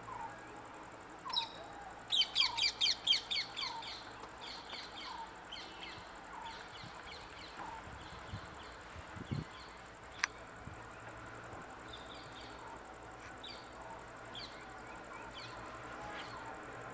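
Birds calling: a quick run of high chirps about two seconds in, then scattered chirps, over a lower short note repeated about once a second. A single sharp click about ten seconds in.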